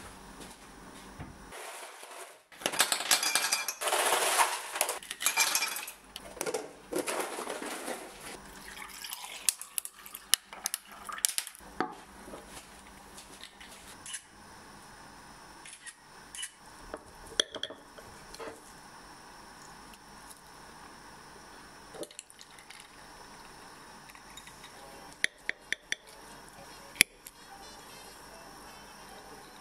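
Kitchen handling noises: a loud rushing clatter about three to six seconds in, then scattered clinks and knocks of dishes. Near the end, a few sharp clinks of a knife against a ceramic plate.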